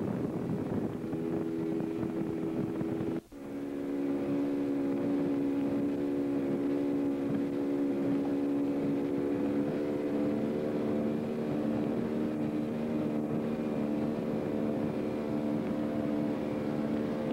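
Motorboat engine running steadily under way, an even hum over wind and water rush. The sound drops out for an instant about three seconds in and comes back at a slightly different pitch.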